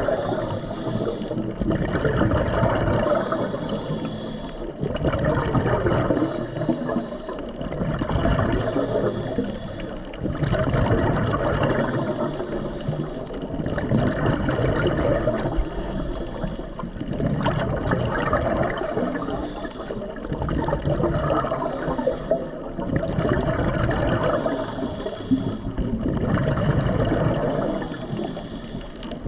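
Underwater breathing: bursts of gurgling exhaled bubbles about every three seconds, in a steady breathing rhythm.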